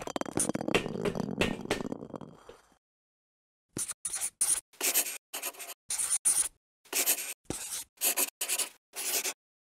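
A dense rattling noise lasts about two and a half seconds. Then, after a short pause, a dry-erase marker is drawn across a whiteboard in short separate strokes, about two a second, each a brief scratchy squeak of felt tip on the glossy board.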